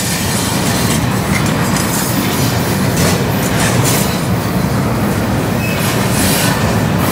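Freight train of open-top hopper cars rolling past close by: a steady, loud rumble of steel wheels on rail, with occasional clacks as the wheels pass over the rail joints.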